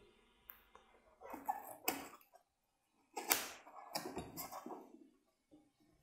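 Faint handling noise as a finned metal heat sink is pushed into place over a Peltier module in a polystyrene-foam wall: a few short scrapes and soft knocks, one sharp click about two seconds in and a cluster of rubbing sounds from about three seconds in.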